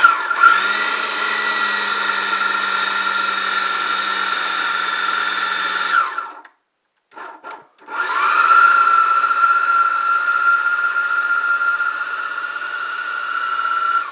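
Food processor motor running as it mixes cookie dough with the dry ingredients: a steady whine for about six seconds, a stop broken by a short pulse, then it starts again, rising in pitch as it comes up to speed, and runs steadily to the end.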